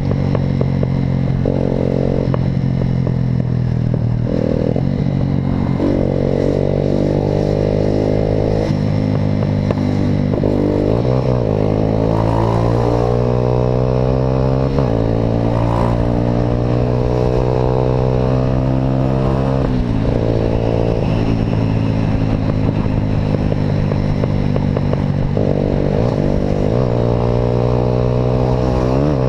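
Motorcycle engine running through an Atalla aftermarket exhaust while riding. The exhaust note climbs slowly in pitch and drops sharply several times, as with throttle and gear changes.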